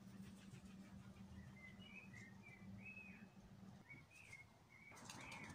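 Faint bird chirps: a string of short whistled notes, some rising and falling. A low steady hum runs underneath and stops about four seconds in.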